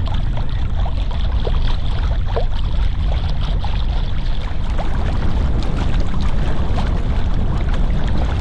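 Wind buffeting the microphone on a sailing yacht under way, a steady low rumble, over water rushing and lapping along the hull with small splashes.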